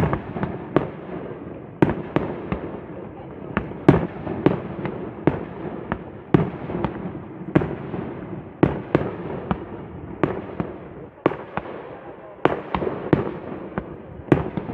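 Aerial fireworks display: a continuous run of shell bursts and bangs, about one to three a second at uneven intervals, over constant crackling and rumbling.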